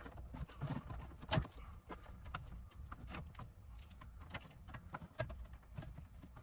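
Plastic wiring-harness connectors clicking and rattling as they are worked loose, latch by latch, from the back of a factory car radio: a string of small irregular clicks with a sharper knock about a second and a half in.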